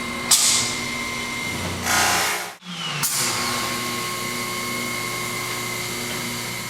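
Norfield E Series Magnum door machine cycling: its electric lock and latch drills and faceplate router motors run with a steady whine, with short hissing bursts early on. About two and a half seconds in the sound briefly drops, then a second stage of motors starts and runs steadily until it stops just after.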